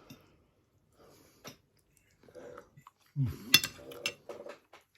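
Cutlery clinking and scraping against a plate during a meal, with sharp clicks, the loudest about halfway through, and a short low vocal sound that falls in pitch.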